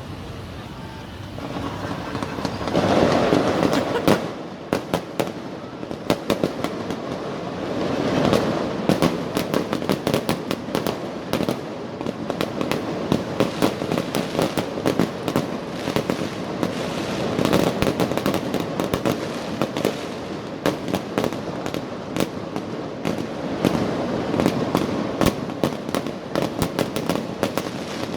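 Street fireworks and firecrackers going off: a swell of hissing about three seconds in, then dense, rapid cracks and pops, with repeated swells of louder noise.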